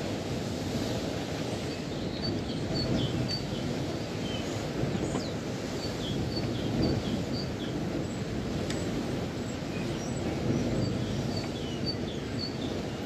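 Steady wind noise with small birds chirping over it, short high calls every second or so.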